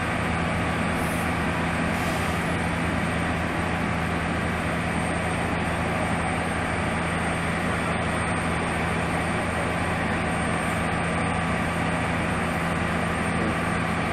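Fire engine's engine running steadily: a constant low rumble with a steady hum.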